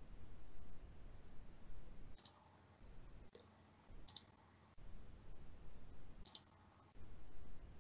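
A computer mouse clicking: four single sharp clicks a second or two apart, faint over low room noise.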